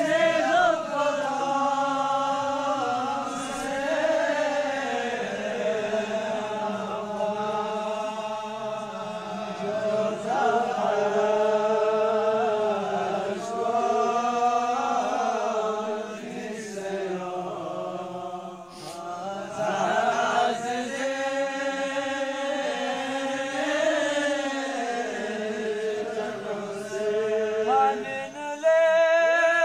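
Balti qasida, a devotional poem chanted by a single voice in long, slowly bending melodic phrases, with a short break about two-thirds of the way through.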